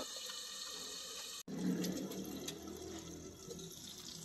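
Tomatoes with a splash of broth simmering in a covered aluminium pan on a gas burner: a steady bubbling hiss, broken off sharply about a second and a half in, then carrying on.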